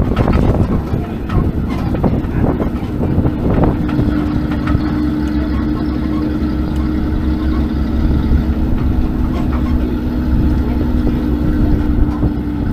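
Open-air parking-lot tram under way: a continuous low rumble of its motor and wheels, joined about four seconds in by a steady hum.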